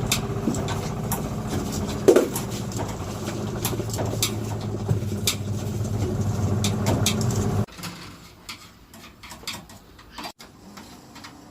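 A steady motor hum with scattered light clicks, cutting off abruptly about eight seconds in; after that only faint clicks and handling noise.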